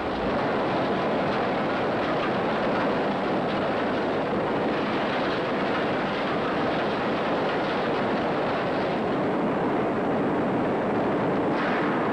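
Steelworks furnace and plant noise: a steady, loud industrial din with a brief burst of higher hiss near the end.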